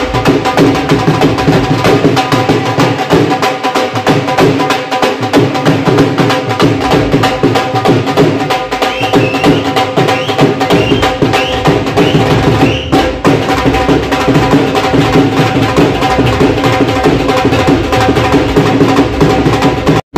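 Dhol drums playing a fast, dense rhythm together with music that holds a few steady notes.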